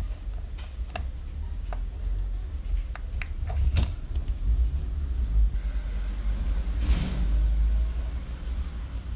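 Steady low rumble with a scatter of light, irregular clicks from tweezers and small tools on a mechanical watch movement in the first few seconds, and a brief swell of noise about seven seconds in.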